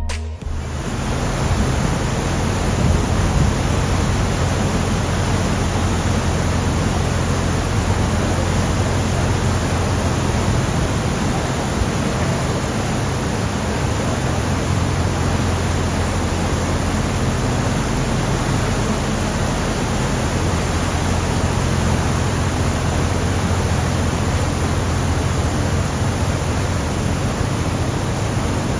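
Steady, loud rushing of a waterfall heard from a boat, with a deep steady rumble underneath.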